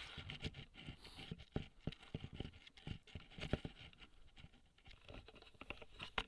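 Faint, irregular rustling and soft knocks: footsteps in grass and handling noise on a rifle-mounted thermal scope as it is carried.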